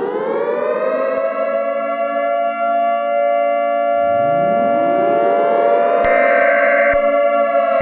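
Civil defense sirens wailing: one already wound up to a steady pitch, and a second winding up in rising pitch about four seconds in and joining it. From about six seconds a higher tone pulses on and off, roughly once a second.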